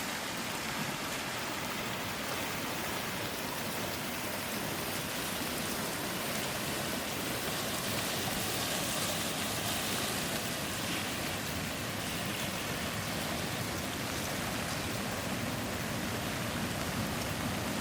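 Waterfall water rushing and splashing in a steady, even hiss.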